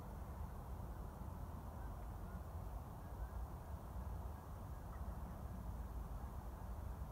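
Quiet outdoor ambience: a steady low rumble with a few faint, short high chirps.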